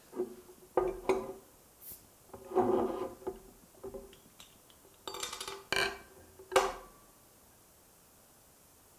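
Glass beer bottle being handled and opened: scattered knocks and clinks of glass against the table, then a cluster of sharper, brighter clicks between about five and seven seconds in as the cap comes off.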